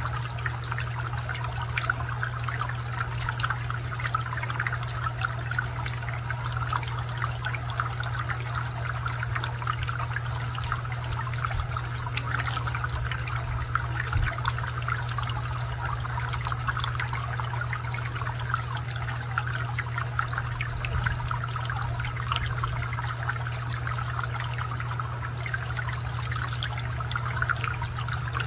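Garden water fountain trickling and splashing steadily, with a low steady hum underneath.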